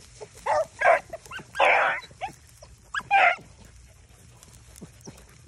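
Beagles baying on a swamp rabbit's trail: a string of short barks and one longer drawn-out bawl in the first three and a half seconds, the hounds telling that they are running the rabbit.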